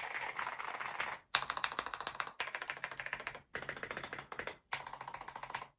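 Fast typing on a mechanical keyboard with Gateron linear switches: a dense run of clacking keystrokes, broken by brief gaps about once a second, that stops just before the end.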